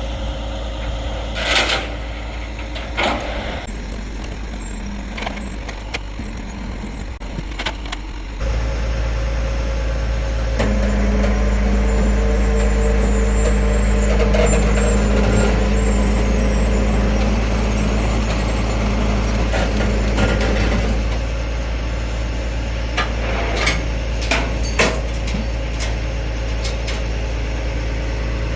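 Tow truck engine running steadily, rising to a louder, steady hum for about ten seconds in the middle, with a few sharp clicks and knocks near the start and again near the end.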